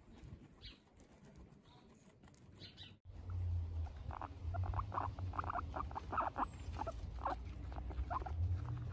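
Guinea pig chewing fresh grass: quick, crisp crunching and snipping of the blades, faint at first, then close and loud after a cut about three seconds in. A low, steady rumble runs under the chewing in that second part.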